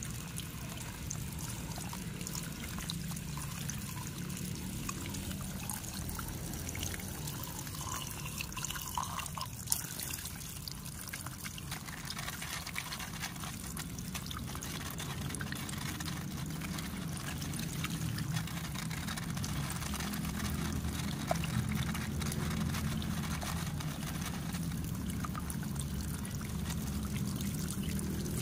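A stream of water pouring steadily over a hand-held plastic toy airplane, splashing and trickling off it onto a plastic sheet below. A small click about ten seconds in.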